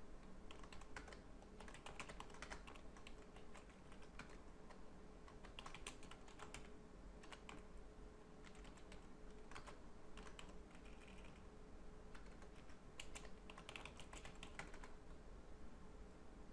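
Computer keyboard typing: faint key clicks in short irregular clusters with pauses between them, over a low steady hum.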